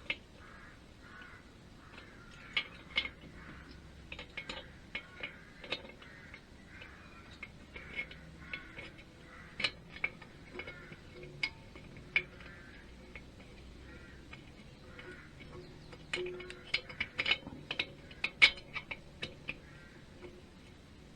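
Small metal engine parts and tools clicking and tapping irregularly as they are handled and fitted by hand, with a busy run of louder clicks about three quarters of the way through. Crows cawing in the background, mostly in the first few seconds.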